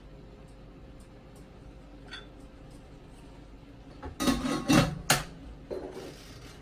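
Kitchenware clinking and knocking, glass and hard plastic against each other. It starts quiet; about four seconds in come three sharp clatters within a second, then a few lighter knocks.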